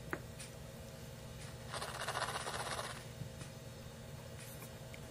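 Faint handling sounds of shotshell reloading components on a bench: a soft scrape about two seconds in, lasting about a second, and a few light clicks.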